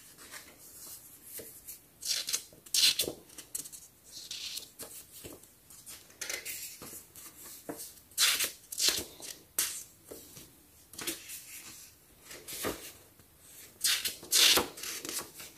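Pages of a small paper storybook being turned and handled, making short, irregularly spaced rustles and flicks.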